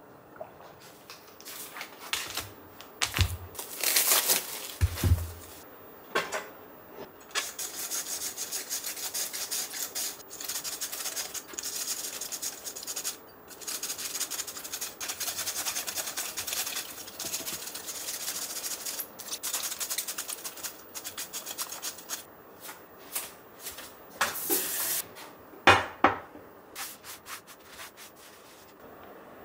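A head of cabbage shredded on a handheld slicer: a long run of quick, repeated rasping strokes, with a few louder knocks near the end.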